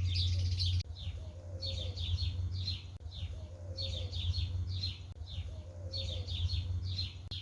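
Small birds singing: repeated phrases of quick, falling chirps, about one phrase a second, over a low steady hum.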